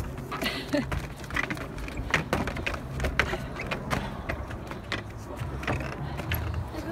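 Footsteps of several people climbing wooden stairs: a string of irregular knocks, over a low rumble.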